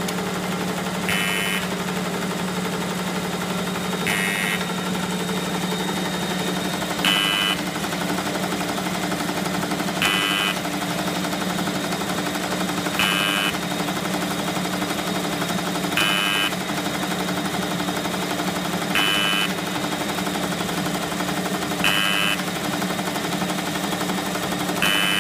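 A high-speed individual straw film/paper packing machine running with a steady hum, and a short, sharp burst repeating about every three seconds.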